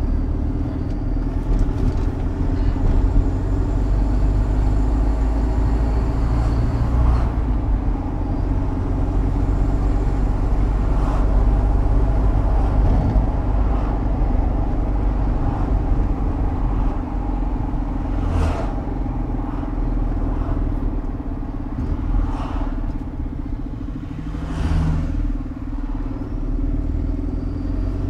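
An Iveco Eurocargo lorry's engine running steadily with low road rumble, heard from inside the cab while driving. Two brief sharp noises come about two-thirds of the way through and again near the end.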